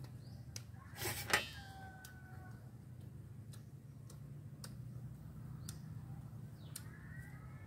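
Soft scattered clicks and ticks over a low steady hum, with a sharper crackle about a second in. Short bird calls come just after the crackle and again near the end.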